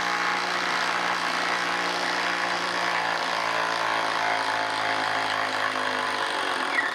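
DeWalt DCF809 Atomic compact impact driver hammering steadily under load as it drives a lag bolt into dry wood end grain through a socket. It stops suddenly just before the end when the run is timed out.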